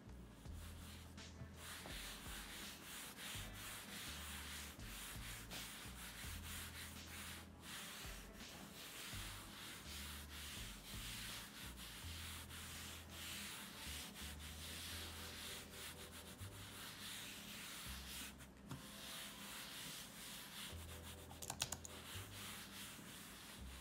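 Razer DeathAdder Elite mouse on Hyperglide PTFE skates sliding back and forth across a desk pad: a steady rubbing swish with a few brief pauses. A quick cluster of clicks comes about 21 seconds in.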